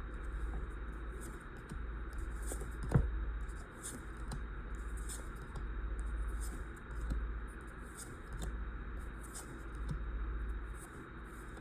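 Trading cards handled one at a time from a freshly opened booster pack: a run of short soft swishes as each card slides past the next, with one sharper tap about three seconds in, over a steady low hum.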